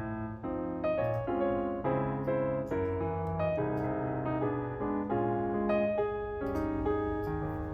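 Background piano music: a melody of quick notes over a steady bass line, with a few faint clicks near the end.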